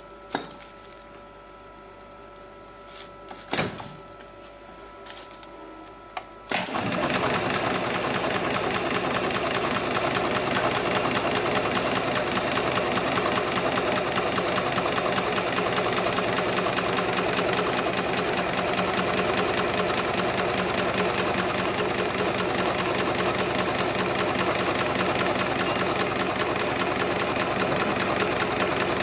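HIGHTEX 7273PLK automatic programmable pattern sewing machine. It hums faintly with two sharp clacks, then about six and a half seconds in it starts sewing and keeps stitching fast and steady to the end.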